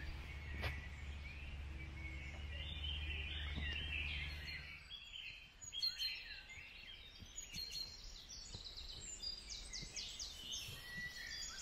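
Birdsong from several birds, with many short chirps and warbles and a quick run of repeated chirps in the second half. A low steady rumble underneath stops about five seconds in.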